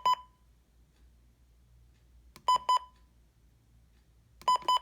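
Weather alert radio's electronic beeper giving quick groups of three short, high beeps about every two seconds, the radio's alert chirp after receiving a Required Weekly Test.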